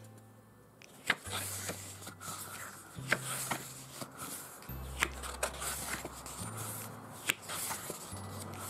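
Pages of a glossy album photobook being turned by hand: a sharp paper flick or rustle about every two seconds, under quiet background music with a low bass line.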